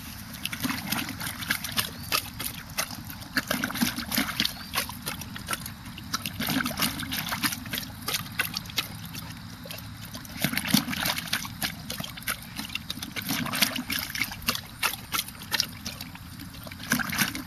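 A German Shorthaired Pointer chewing at and plunging its muzzle into water in a plastic bowl instead of lapping it, making quick, irregular splashing and sloshing in uneven bouts.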